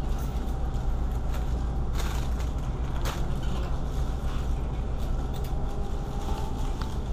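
Steady low hum and rumble of a grocery store's refrigerated produce aisle, with a few sharp clicks and rustles, the clearest about two and three seconds in.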